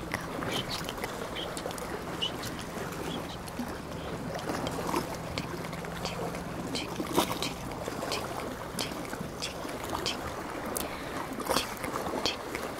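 Sea water lapping and washing at the shore, with scattered small clicks and ticks through it. A faint low steady hum underneath stops about seven seconds in.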